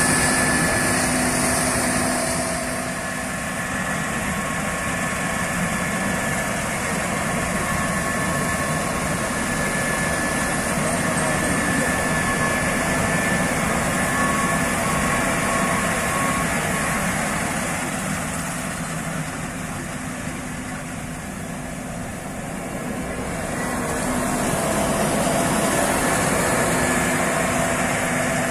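Case IH Axial-Flow 6150 combine harvester running under load while cutting and threshing triticale: a steady drone of engine and threshing machinery carrying several steady whining tones. It fades a little and swells again as the machine moves away and comes closer.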